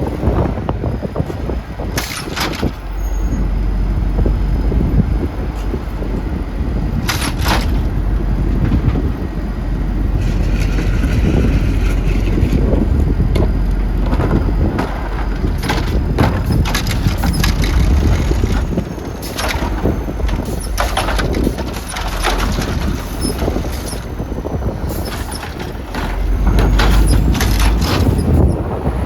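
Refuse truck working, its engine running with repeated clanks and knocks, while strong wind buffets the microphone with a deep rumble.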